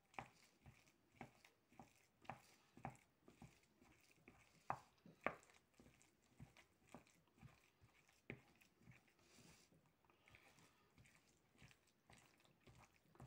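Corned beef and mashed potato pie filling being mixed in a glass bowl: faint, irregular squelches with soft clicks, a few louder ones about halfway through.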